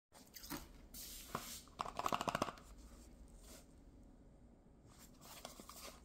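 Small cardboard blind box being handled and turned in the fingers, with card rubbing and rustling. A quick run of sharp clicks about two seconds in is the loudest part.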